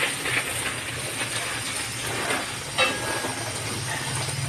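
Water spraying from a garden hose onto potted plants and wet pavement, a steady hiss. A single sharp click about three seconds in, and a low hum grows louder near the end.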